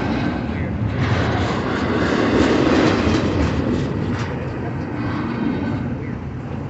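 CSX double-stack container train rolling past at speed: a steady rumble and rush of the well cars' wheels on the rails, swelling in loudness two to three seconds in.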